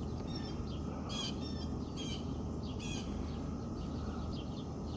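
Small birds chirping: a series of short, high chirps about every half second to a second, over a steady low outdoor background rumble.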